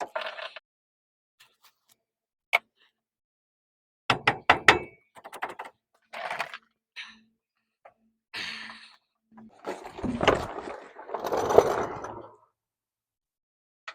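Intermittent knocks and clatter of hand tools and metal parts being handled during drive shaft removal. There is a quick run of sharp taps about four seconds in, then a longer scraping clatter at around ten to twelve seconds.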